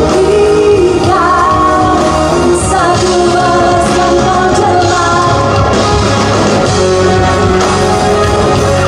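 Live rock song: a woman singing long held notes over a full band, played loud through a concert sound system.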